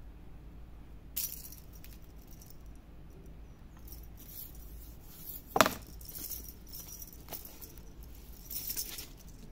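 A wire-and-feather cat teaser toy jingling and rattling in short, scattered bursts as it is waved and dragged over concrete, with one sharp tap about five and a half seconds in.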